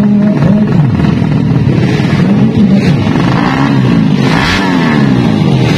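A 200 cc four-stroke underbone drag-bike engine revved in short repeated blips through its racing exhaust while the bike stands still. Its pitch rises and falls about once or twice a second.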